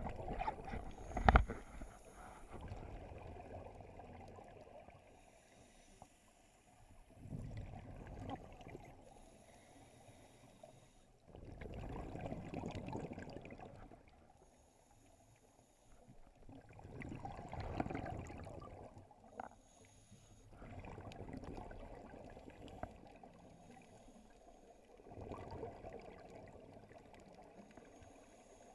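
Scuba regulator breathing underwater: exhaled bubbles gurgle out in swells every four to five seconds, with quieter stretches in between. A sharp knock about a second in.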